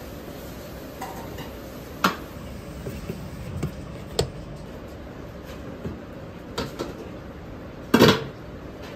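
Steel ladle clanking against a stainless steel bowl and wok while rice is scooped, a handful of sharp metal clanks with the loudest, longest clatter about eight seconds in, over a steady background rush.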